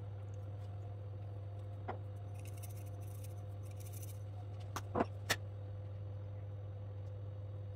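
Spice shakers sprinkling dried herbs, a faint hiss of flakes a few seconds in, with a few sharp clicks of the shakers being handled about five seconds in, over a steady low hum.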